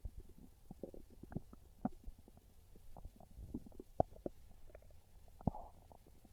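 Hungry human stomach growling and gurgling: a run of irregular little pops and bubbling gurgles, with sharper pops about four seconds in and again about a second and a half later.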